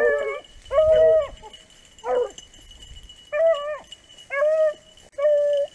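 Beagles barking on a rabbit hunt: about six short, ringing barks, roughly one a second, as the dogs give mouth in the brush.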